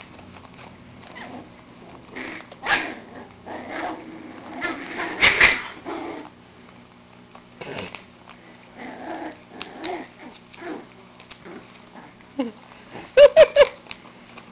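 Dachshund puppies playing with an adult dachshund, making short squeaky yips and play noises on and off. The loudest is a quick run of three or four sharp yips near the end.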